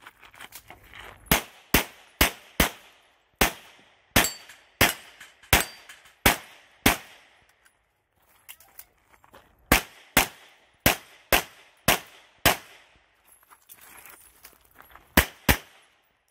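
CZ Shadow 2 pistol fired in rapid strings of single shots and pairs, roughly half a second apart, about eighteen shots in all. There are two pauses of a couple of seconds between strings, one near the middle and one late on.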